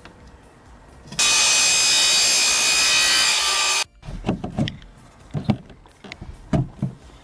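A power saw cutting through PVC pipe for about two and a half seconds, starting and stopping abruptly. Then a run of knocks and clicks as PVC pipe pieces are handled and pushed together.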